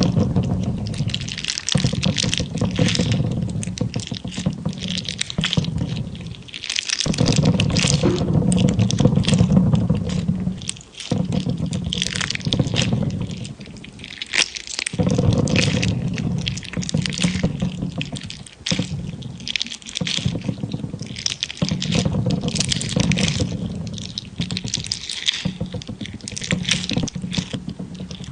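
Jelly being squeezed and popped: wet squishing with dense crackling and popping, in bouts of a few seconds with brief pauses between them.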